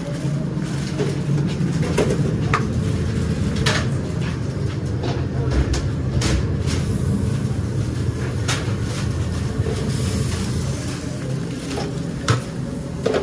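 Steady low mechanical rumble of commercial kitchen equipment, with a few light clicks and knocks scattered through and one louder knock near the end.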